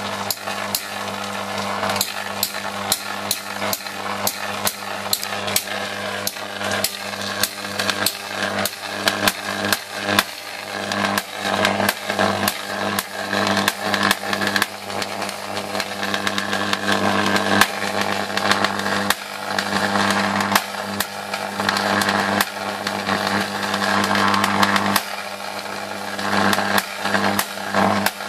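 High-voltage transformer driving a Jacob's ladder: the electric arc between the wires runs continuously with a steady electrical hum and a dense crackle of sharp snaps.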